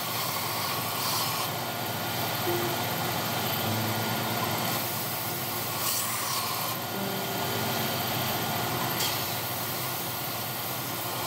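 Stationary belt sander running while the edge of a walnut cutting board is pressed against the belt. The sanding hiss changes every couple of seconds as the board is moved along and repositioned.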